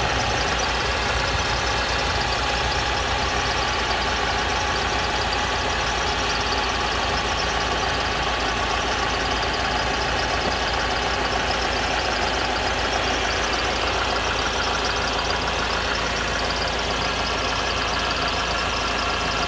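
Toyota Hiace diesel engine idling steadily after a new fuel pump was fitted to cure its hard starting.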